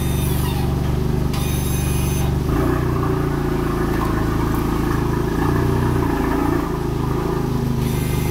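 Audi sedan's engine idling steadily as the car creeps slowly, with short bursts of hiss twice near the start and once near the end.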